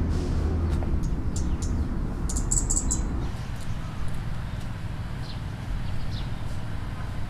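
Small birds chirping: a quick run of high chirps a couple of seconds in, then a few fainter single notes, over a steady low rumble.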